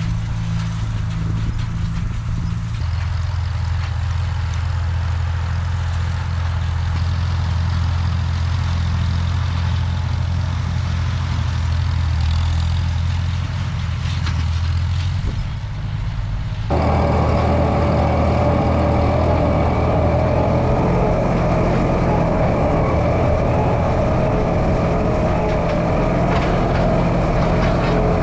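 Farm tractor engine running steadily with a low hum. About two-thirds of the way through, the sound changes abruptly to a louder, brighter machine run.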